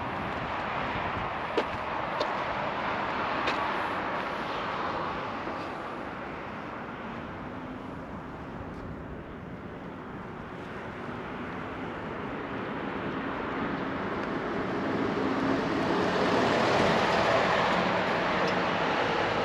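Road traffic passing on a multi-lane road below: a box truck drives by, its engine and tyre noise swelling to its loudest near the end.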